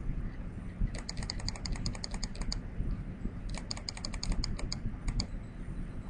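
Computer mouse clicking in two quick runs of about eight clicks a second, the first about a second in and the second past halfway, with a couple of last clicks near the end. Each click steps a numeric damping field up one notch.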